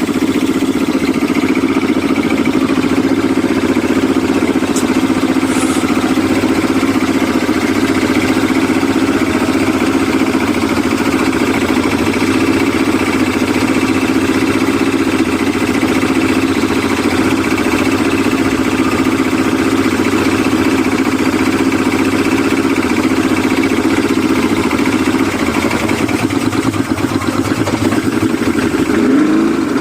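Yamaha 200 hp outboard motor on a test run after repair, running steadily at a constant speed. Near the very end its revs begin to climb.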